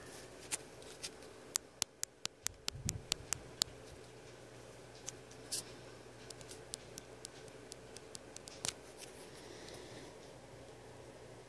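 An irregular series of sharp small clicks and taps, a quick run of about a dozen in the first few seconds and then scattered ones, over a faint steady low hum.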